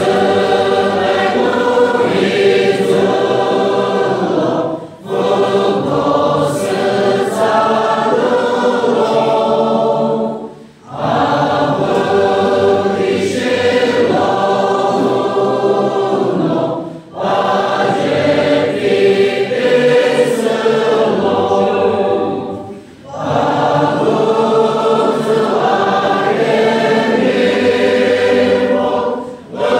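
A congregation of men's and women's voices singing a hymn together, in phrases with a short breath-break about every six seconds.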